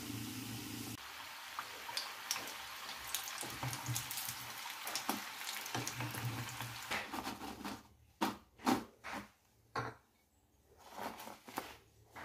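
Hot oil sizzling and crackling around tuna patés deep-frying in a pan. About eight seconds in, the sizzle dies away as the patés are lifted out in a wire skimmer, leaving a few separate drips and pops of oil.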